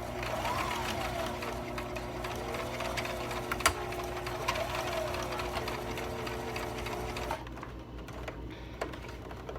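Sewing machine running, sewing a straight stitch. Its whine rises and falls in pitch, with a sharp click a little after a third of the way in. The machine stops about three quarters of the way through, and a lighter click follows.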